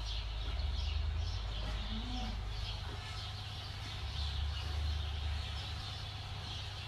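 Many small birds chirping over a steady low hum.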